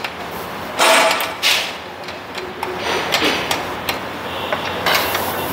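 Handling noise from a mini electric wire-rope hoist and its mounting: two loud, short clattering knocks about a second in, then lighter rattles and scrapes.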